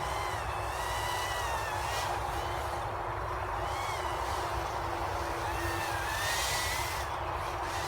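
Brushless micro FPV quadcopter (EMAX Babyhawk, 5000KV motors with three-blade 2.3-inch props) flying, its motors and props whining in a pitch that rises and falls again and again as the throttle changes.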